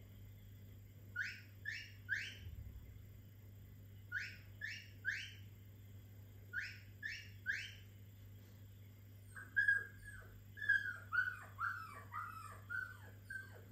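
Recorded dog whines and whimpers played through a laptop speaker. Three short rising whines come in a group, and the group is repeated three times; from about nine seconds in, a quick run of short falling whimpers and yelps follows.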